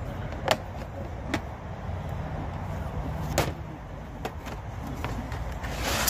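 Campfire crackling, with about five sharp, irregular pops over a steady low rumble, and a brief rush of noise near the end.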